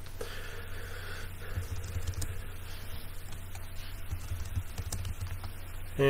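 A few soft computer keyboard keystrokes as a short terminal command is typed and entered, over a steady low hum.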